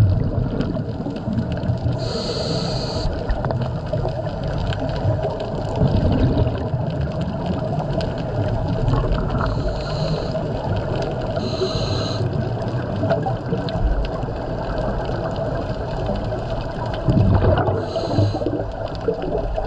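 Scuba breathing heard underwater through a regulator: about four short hissing inhales, with low bubbling exhales in between, over a steady underwater rumble and a faint steady hum.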